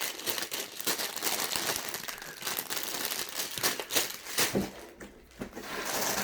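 Plastic bags of Lego pieces crinkling and rustling as they are handled, in a dense run of irregular crackles that dips briefly about five seconds in.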